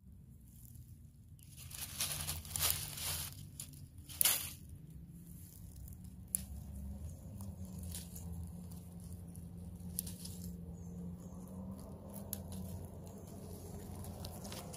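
Rustling and crackling of leaves and plant stems being handled, with a cluster of sharp snaps early on, then softer scattered ticks over a faint steady low hum.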